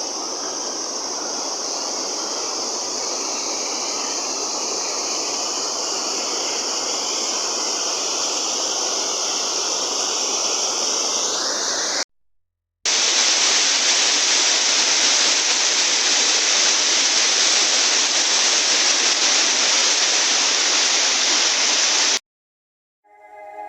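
Waterfall's rushing water, a steady, even noise. It cuts off abruptly about halfway, resumes a moment later slightly louder, and stops shortly before the end.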